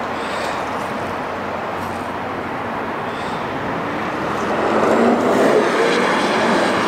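Cars driving past on a road, among them an all-electric Porsche Taycan: mostly tyre noise on the asphalt, swelling as they approach and loudest about five seconds in.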